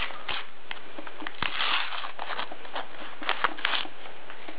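A foil sticker packet being torn open and handled: scattered crinkles and crackles, with longer rustling rips about one and a half seconds in and again after three seconds.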